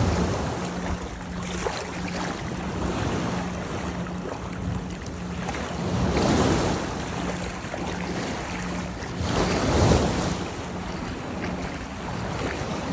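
Small surf waves washing around the legs in shallow water, with wind buffeting the microphone; two louder surges of water and wind come about six and ten seconds in.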